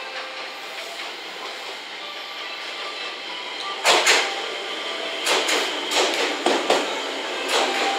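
JR West 221 series electric multiple unit running past at the platform: a steady rolling rumble, then from about halfway its wheels clack over the track in repeated groups of sharp clacks, the first the loudest, as the cars pass.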